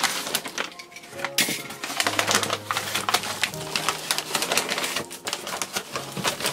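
Brown kraft-paper wrapping crinkling and rustling as hands grab and turn a paper-wrapped cardboard parcel: a continuous run of crackles.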